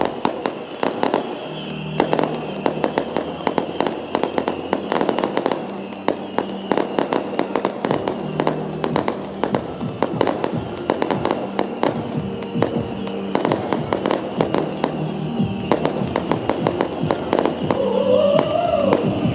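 Beehive firework battery (bottle-rocket barrage) firing: a dense, continuous run of rapid cracks and pops from rockets launching and bursting.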